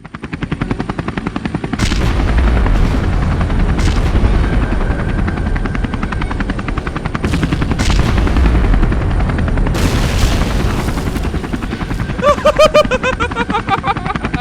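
Helicopter rotor chopping in a fast, steady beat, fading in at the start, with a few louder bangs along the way and a short run of repeated high chirps near the end.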